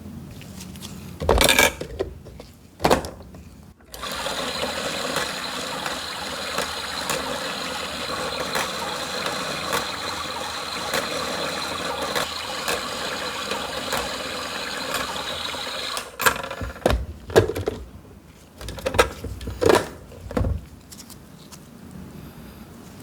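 A small electric rotary tool runs steadily for about twelve seconds, with a constant whine. It is framed by a few sharp knocks and clatter of tools and the coin being handled before and after.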